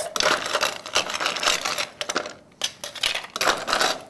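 Ice cubes clattering into a cocktail shaker, in two spells of rattling with a short lull a little past halfway.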